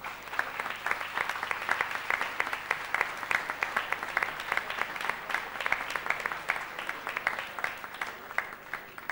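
Applause: a group of people clapping hands steadily, with sharp individual claps close by, dying away at the very end.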